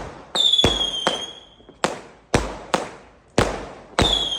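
Fireworks going off in quick succession: about eight sharp bangs, each with an echoing tail. Two high whistles slide slightly down in pitch, one about half a second in and one near the end.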